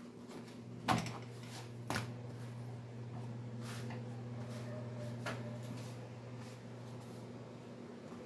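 Handling noise from a swimming arm floater and its plastic packaging: two sharp knocks about a second apart near the start, then a soft rustle and a click, over a steady low hum.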